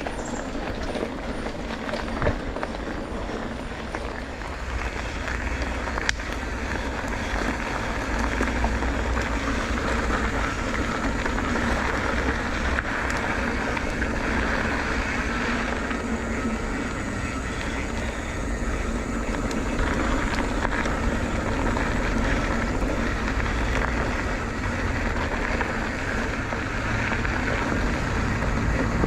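Motorcycle riding along, a steady rush of engine, tyre and wind noise on the microphone that grows a little louder a few seconds in.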